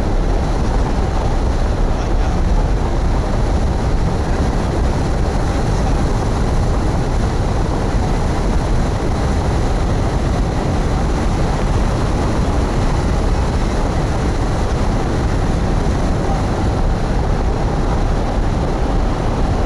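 Loud, steady wind noise: air rushing over the microphone of a camera mounted on a hang glider's wing during flight, an even rush with no breaks.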